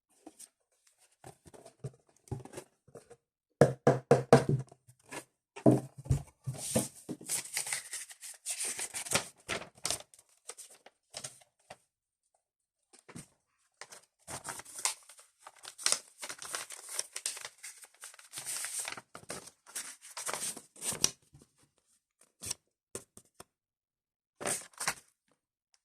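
Yu-Gi-Oh! card packaging being torn open and crinkled by hand: strings of short rips and rustles in several spells with pauses between, and a few handling knocks about four seconds in.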